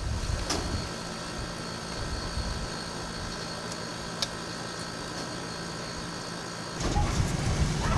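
A steady mechanical hum in the background, with a few faint sharp clicks as small scissors snip water spinach stems. A low rumble like wind on the microphone comes in near the end.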